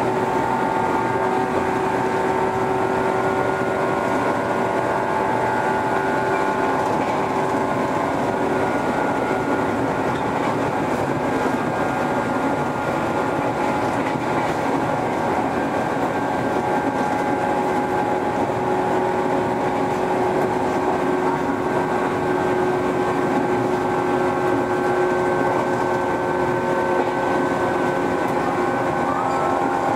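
Ainokaze Toyama Railway 413 series electric train running at a steady pace: an even rumble of wheels on rail under a steady whine from the traction motors.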